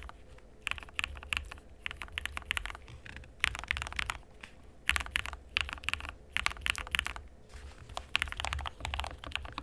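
Typing on a Yunzii KC-68 mechanical keyboard fitted with Gateron Yellow linear switches. The keystrokes come in quick runs of clacks, each about a second long, with brief pauses between the runs.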